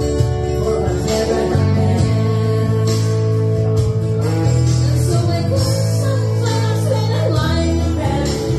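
A woman singing karaoke into a microphone over a recorded backing track, the bass notes changing every second or two.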